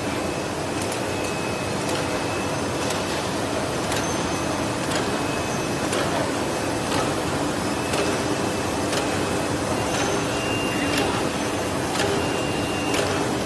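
Automatic kitchen towel pillow packing and labeling machine running: a steady mechanical whirr with sharp clicks about once a second.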